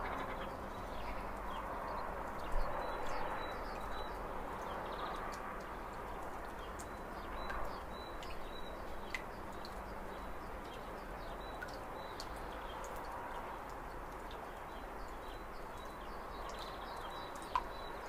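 Steady rushing of whitewater rapids tumbling over rocks, with faint scattered clicks and short high chirps on top.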